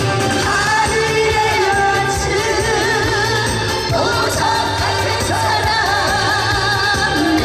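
A man and a woman singing a Korean duet into microphones over backing music, the sung lines carrying a clear vibrato.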